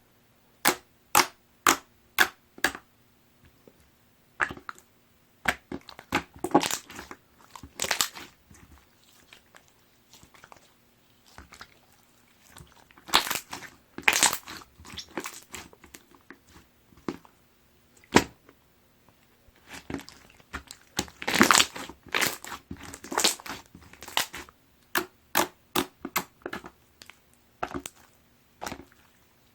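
Hands playing with a watery, jiggly slime, squishing and pressing it. There is a quick run of sharp wet clicks and pops at the start, then irregular squelching, louder near the middle and again later on.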